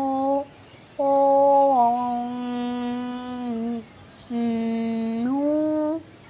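A voice humming long, held 'oo' notes with short breaks between them. A note ends just after the start, the next steps down in pitch about two seconds in, and the last slides upward before stopping about six seconds in.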